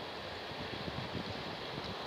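Steady wind noise during a thunderstorm, with a faint low rumbling underneath.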